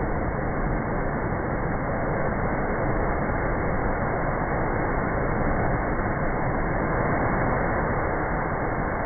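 Sea surf crashing and surging through a rocky coastal channel and blowhole, heard as a steady, even rushing roar with no separate crashes standing out.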